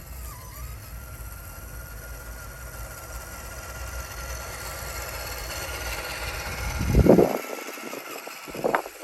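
Electric motor and gearbox whine of an RC4WD Gelande II D90 scale crawler truck driving on sand, a steady thin whine that grows louder over the middle of the stretch. A loud thump about seven seconds in and another sharp knock near the end.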